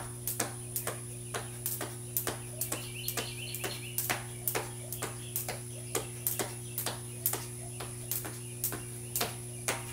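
A long electrical cord used as a jump rope, turning and slapping the concrete in a steady rhythm of about two to three strikes a second, together with shoes landing. A steady low hum runs underneath.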